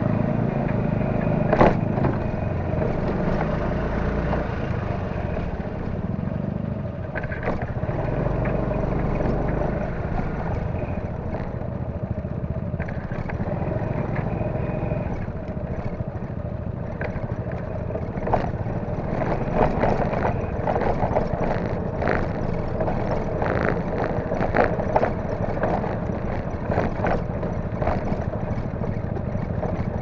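Honda Forza 300 scooter's single-cylinder engine running at low riding speed, picked up close by a handlebar-mounted camera. Scattered clatter and small knocks come mostly in the second half, as it rolls over a rough dirt and gravel surface.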